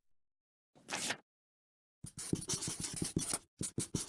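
Scratchy strokes in short bursts: one brief scratch about a second in, then a rapid run of many quick strokes from about two seconds in, with dead silence between the bursts.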